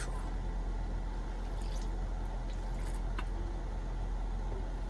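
Steady low hum of an inverter air conditioner running inside a small camper cabin, with a few soft clicks and crinkles from handling a plastic water bottle.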